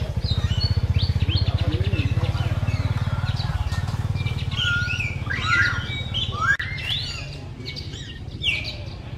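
Several birds chirping and calling in short, quick rising and falling notes, over a steady low rumble that is loudest at the start and eases about a third of the way in.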